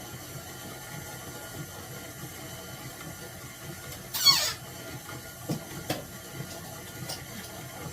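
Electric mixer running steadily, churning cultured sour cream into butter, with a brief high squeak that falls in pitch about four seconds in and a couple of light knocks after it.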